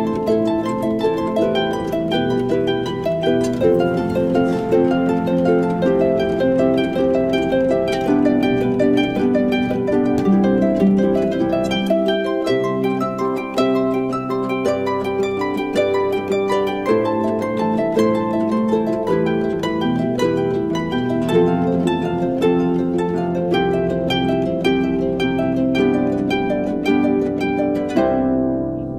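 Instrumental background music of rapid plucked-string notes, with the upper notes falling away near the end.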